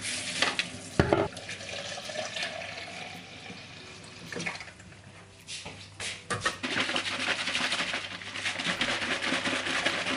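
Protein shake being mixed in a plastic shaker cup. In the first second or so come a few sharp knocks of the scoop and powder tub. From about six and a half seconds in, the closed shaker is shaken hard for about four seconds: liquid sloshing and rattling inside, stopping suddenly at the end.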